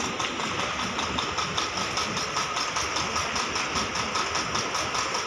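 WDP 4D diesel locomotive idling with a steady engine hum.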